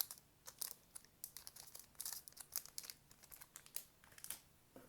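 Plastic packaging crinkling and rustling as card-game box contents such as a pack of card sleeves are handled, in many short, irregular crackles.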